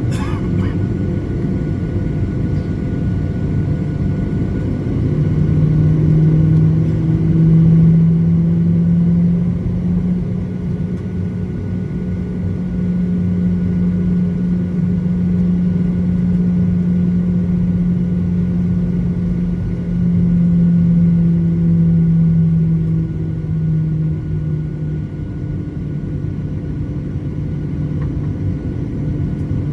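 Boeing 737-900ER's CFM56-7B jet engines running, a steady heavy rumble with a low hum and a faint whine that swells a little twice. A short click at the very start.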